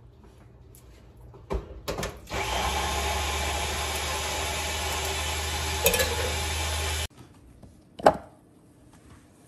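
Electric blender running steadily for about five seconds, grinding the peanut sauce, then switched off abruptly. A few knocks come just before it starts and one after it stops.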